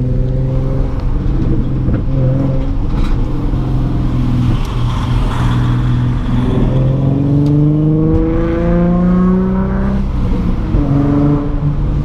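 Nissan 350Z's 3.5-litre V6, heard from inside the cabin, pulling hard in traffic. The engine note climbs in pitch in two long rises with a drop between them, under a steady road noise.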